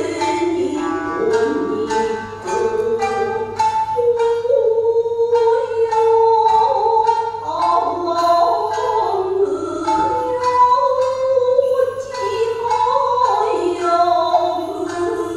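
Traditional Japanese dance music: a singer's voice carrying a slow, bending melody over sharply plucked strings.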